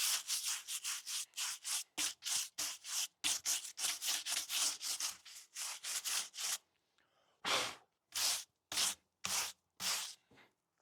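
A brush scrubbing dirt off the bark of a log, in quick back-and-forth strokes about three a second. After a short pause it goes on with about five slower, separate strokes.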